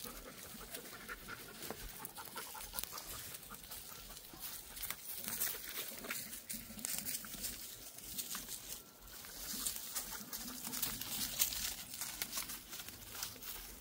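Dogs nosing through dry leaf litter and twigs: a continuous crackling rustle of many small clicks, with dog sniffing and panting.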